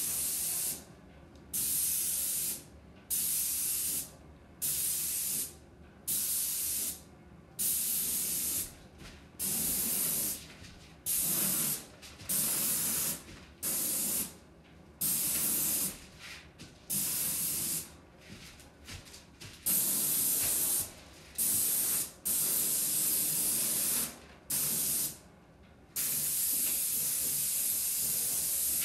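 Airless paint spray gun of a Graco Ultra Max II 490 PC Pro sprayer hissing in repeated short blasts as the trigger is pulled and released a little over a second apart, then in a few longer passes in the last third. It is spraying primer at roughly 1,200 to 1,400 psi.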